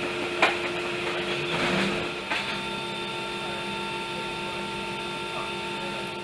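Steady hum and whine of aircraft machinery heard inside a C-17's cargo hold, with a higher whining tone joining about two seconds in. A couple of sharp knocks sound near the start.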